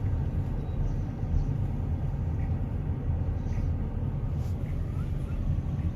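Steady low rumble of a car driving slowly, heard from inside the cabin, with a few faint light clicks.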